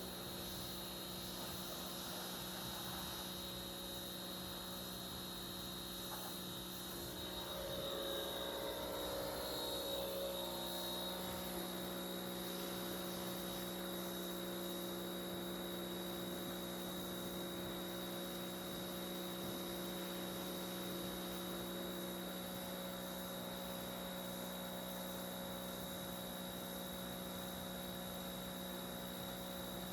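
Faint steady hum made of several steady tones, one of which drops out about two-thirds of the way through.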